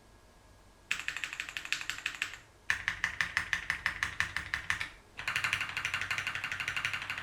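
Typing on a mechanical keyboard with vintage Cherry MX Brown switches on a carbon fibre plate: after about a second of quiet, three fast runs of keystrokes at several a second, with short pauses between them.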